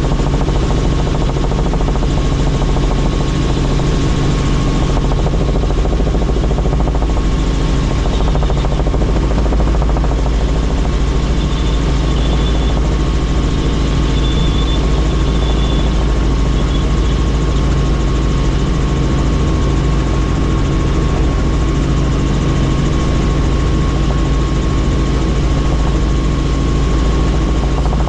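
Helicopter in flight, its rotor and turbine engine running as a steady loud drone, with a thin steady whine above it.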